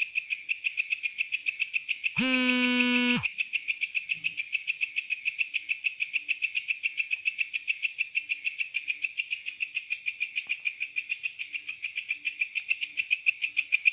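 Night insects chirping in a fast, even pulse of about eight or nine chirps a second. About two seconds in, a loud, steady, buzzy tone cuts in for about a second and ends with a slight drop in pitch.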